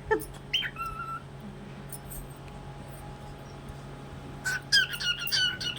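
Cockatiel whistling its song: a couple of short whistled notes near the start, one sliding down and one held, then a pause, then a quicker run of whistled notes from about four and a half seconds in. A steady low hum runs underneath.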